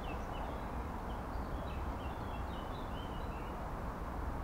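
Small birds twittering in quick, short high chirps over a steady low rumble.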